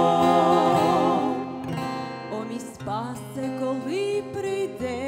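Two voices, a man's and a woman's, hold the last note of a worship-song chorus with vibrato, fading out about a second and a half in. After that an acoustic guitar plays a quieter strummed and picked interlude alone.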